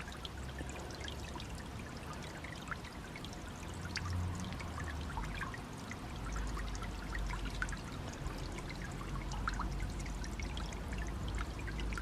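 Steady trickling and splashing of water, dotted with many small droplet ticks. A low rumble joins underneath about five seconds in.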